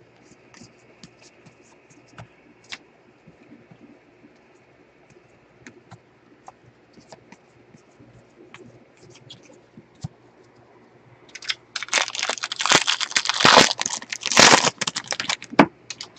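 Baseball cards being slid off a stack by gloved hands, with faint scattered clicks. About twelve seconds in there is a louder few seconds of crackling and rustling as the card stack is handled and turned over.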